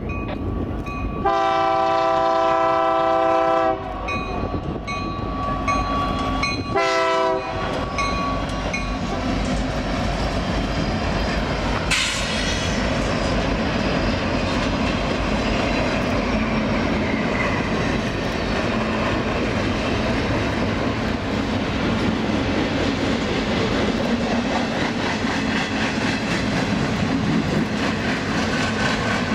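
A train horn sounds one long blast about a second in and a short blast a few seconds later, followed by the steady rumble and clickety-clack of a train rolling past.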